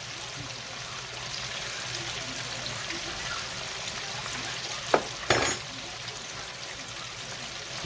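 Chicken wings deep-frying in hot oil, a steady sizzle. About five seconds in there is a sharp click, followed by a brief louder clatter.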